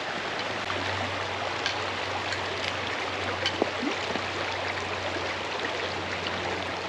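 A shallow creek running steadily over rocks and spilling over a small ledge into a pool, with a few faint ticks.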